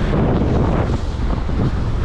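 Strong wind buffeting the microphone, with waves splashing against the boat underneath.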